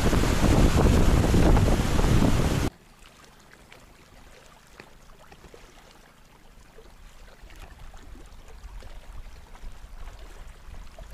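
Wind buffeting the microphone in a loud, steady rush that cuts off abruptly about two and a half seconds in, leaving a faint outdoor background with small scattered ticks.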